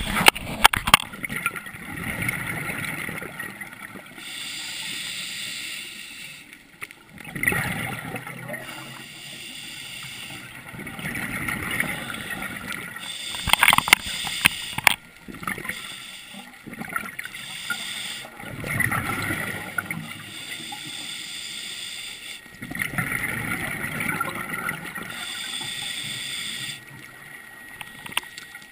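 A scuba diver breathing through a regulator underwater: a hiss of drawn air alternates with the bubbling rush of exhaled bubbles, about four slow breaths. A few sharp clicks come near the middle.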